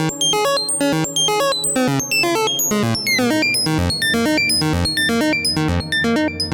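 Eurorack through-zero oscillator (Weston Precision Audio TZO) playing a sequence: a fast run of short pitched synth notes, about five a second, rich in harmonics. In the middle the tone sweeps up and down in pitch, and a low bass note comes in about four seconds in.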